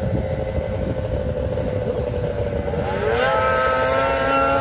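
An engine running at a steady pitch, then revving up about three seconds in and holding at a higher, steady pitch.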